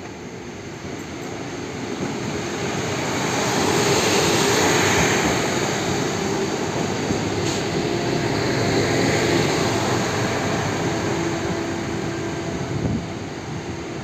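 Newag Impuls electric multiple unit pulling into a station. Its running noise grows louder to a peak about four to five seconds in as it passes close by, then carries on steadily as it slows alongside the platform.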